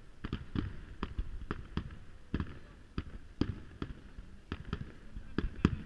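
Aerial fireworks shells bursting: an irregular string of more than a dozen sharp bangs, the loudest near the end.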